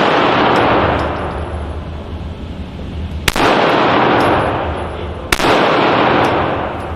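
Handgun shots at an indoor range: two sharp shots about two seconds apart, each followed by a loud echoing wash that dies away over a couple of seconds.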